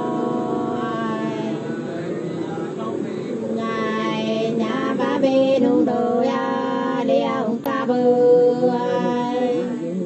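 Sli (hát si) folk singing of the Nùng people: high women's voices singing unaccompanied in long held notes that bend and glide in pitch.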